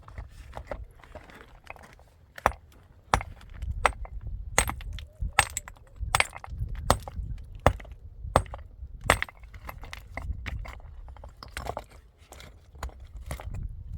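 A series of irregular sharp clinks and knocks, one or two a second, of hard objects being handled, over a low rumble.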